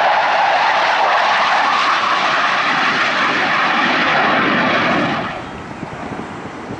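Navy F/A-18 jet making a low pass, its loud jet noise sinking in pitch as it goes by. About five seconds in the noise drops suddenly to a quieter, steady rumble of jets further off.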